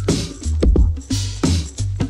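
Electronic background music with a heavy pulsing bass and sharp drum hits a few times a second, with a falling synth glide near the start.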